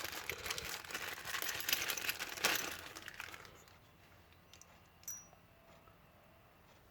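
Packaging crinkling and rustling as a pack of engine core plugs is opened by hand, with many light clicks, dying away after about three and a half seconds; a single short click a little later.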